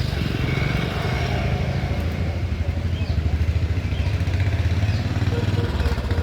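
An engine running steadily with a low, rapidly pulsing rumble, like a motorbike or small vehicle idling close by.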